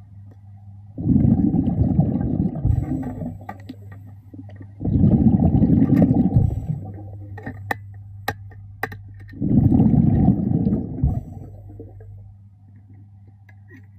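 Diver's exhaled air bubbling out of the breathing regulator underwater: three breaths about four seconds apart, over a steady low hum, with a few sharp clicks between the second and third.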